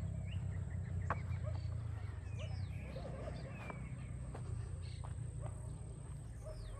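Scattered bird chirps, several short falling whistles, with a few faint clicks over a steady low rumble.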